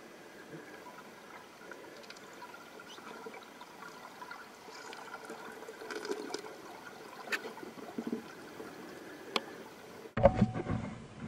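Underwater pond sound: a faint steady hiss with scattered sharp clicks and ticks, then near the end a sudden louder burst of bubbling, gurgling water.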